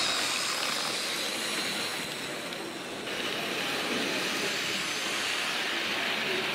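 Model railway train running past: a model diesel locomotive's electric motor whirring and its wheels running on the rails, with a high whine that fades about a second in. Steady hall hubbub runs underneath.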